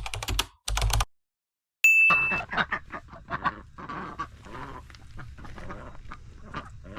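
A flock of domestic waterfowl calling in many short overlapping calls, starting about two seconds in just after a brief steady high tone. Before that there is a second of rapid clicking over a low rumble that cuts off abruptly.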